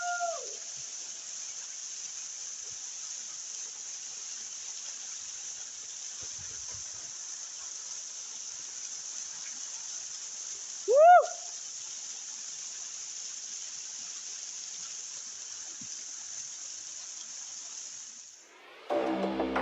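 Steady high-pitched chorus of insects, with two short, arching calls over it, one at the start and a louder one about eleven seconds in. Music comes in just before the end.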